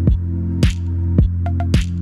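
Outro background music: an electronic track with sustained deep bass notes and a steady drum beat hitting about twice a second.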